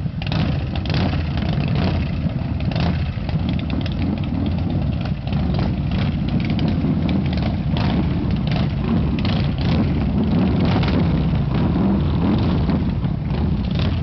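V-twin engine running steadily at a fairly even speed.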